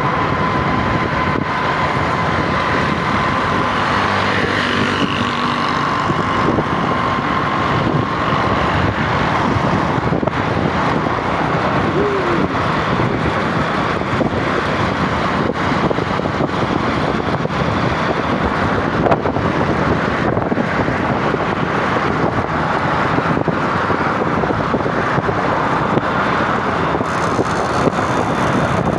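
Steady motor-vehicle and road noise without a break, with a thin, steady high tone over it for roughly the first nine seconds.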